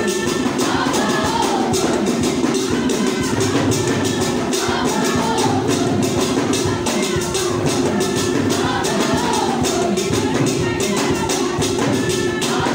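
Music with fast, busy percussion: a dense run of shaken or struck beats over a steady low accompaniment, with melodic lines rising and falling above it.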